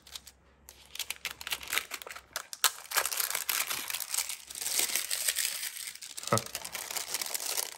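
Packaging being opened by hand: wrapping crinkling and tearing in a dense, irregular crackle, with a sharp click and, about six seconds in, a dull knock.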